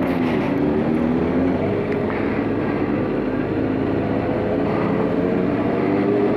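Kawasaki ZX-10R sport bike's inline-four engine running at steady moderate revs while riding, with wind noise on the helmet microphone; the engine pitch rises gently near the end as the throttle opens a little.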